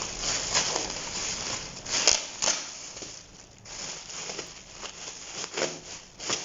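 Rustling and crinkling as a clothing set and its packaging are handled and unfolded, with irregular sharp crackles, loudest about two seconds in.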